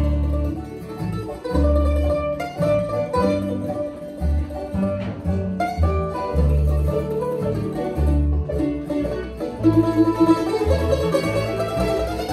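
Bluegrass band playing an instrumental break: banjo, mandolin, fiddle and acoustic guitar over an upright bass keeping a steady walking bass line, with no singing.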